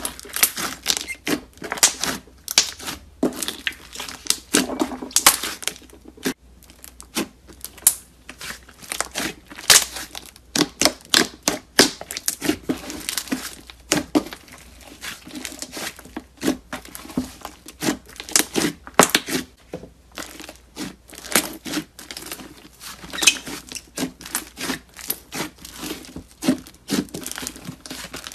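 Hands squeezing, pulling and stretching thick white slime, giving a dense, irregular run of crackling, popping clicks.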